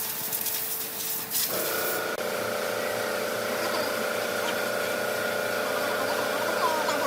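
A power tool running steadily with a hiss, joined about a second and a half in by a steady motor hum.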